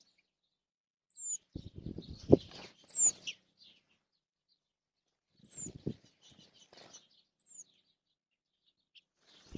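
Waxwings giving high, thin, downslurred call notes, four short ones spaced about two seconds apart. Between them come two bursts of wing fluttering and splashing from birds bathing in a shallow birdbath, the loudest a sharp flap a little over two seconds in.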